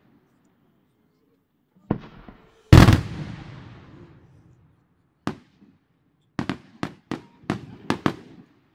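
Fireworks display: aerial shells bursting. A sharp bang comes about two seconds in, then a louder boom with a long rolling echo, another bang a little past five seconds, and a quick run of about seven bangs near the end.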